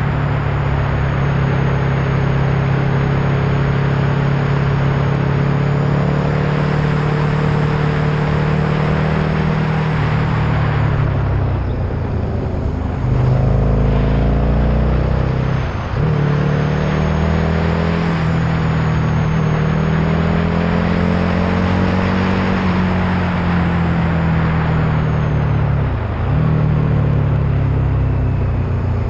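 Vehicle engine running at road speed under a steady rush of road and wind noise. The engine note sags and then picks up again a little before halfway, with brief breaks in the note about halfway and again near the end.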